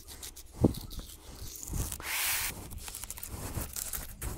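Filleting knife cutting through a hanging kingfish, skin and flesh tearing and rasping as the blade works along the body, with a dull knock about half a second in and a longer scraping cut around two seconds in.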